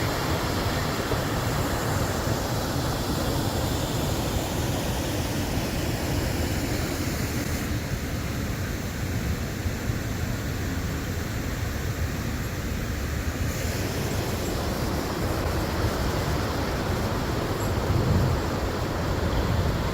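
Rushing water of the Chagrin River, a steady loud rush of noise with no breaks.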